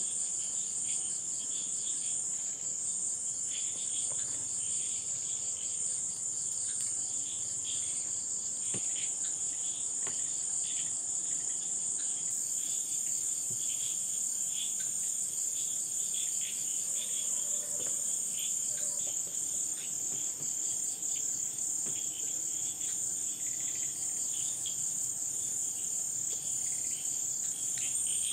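Night insect chorus: a steady high trill with a lower chirping pulsing irregularly over it.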